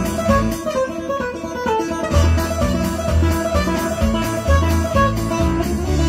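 Acoustic-electric guitar played instrumentally: low bass notes thump in a steady rhythm under higher picked notes.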